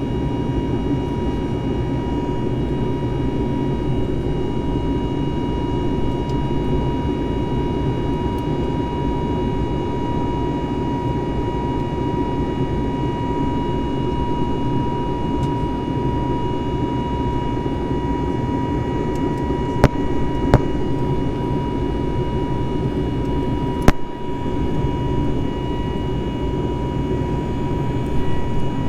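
Airbus A320 cabin noise in flight after takeoff: the engines and airflow make a steady low roar, with a steady high whine over it. A few sharp clicks come about two-thirds of the way through.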